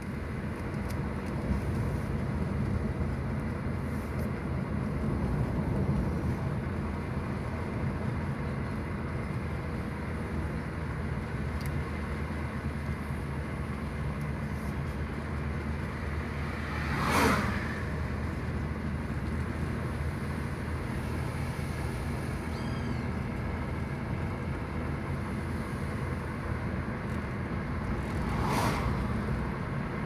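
Steady engine and tyre noise inside a moving car's cabin. An oncoming car whooshes past about halfway through, and there is another, weaker swell near the end.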